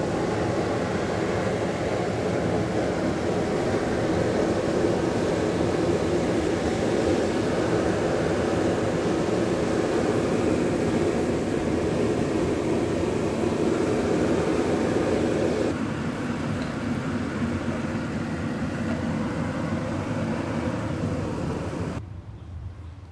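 Propane burner under a homebuilt brewing stand running with a steady rushing noise. The noise eases a little about two-thirds of the way through and drops off sharply near the end.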